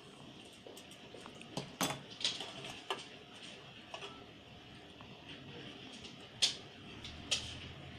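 Scattered light clicks and taps of a metal spoon against bowls and dishes, the loudest a little after six seconds in.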